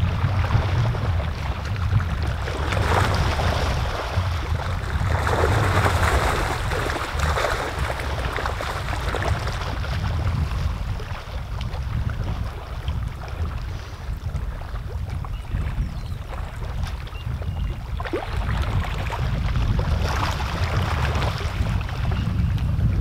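Wind buffeting the microphone, a steady low rumble, with a rushing hiss that swells and fades a few times.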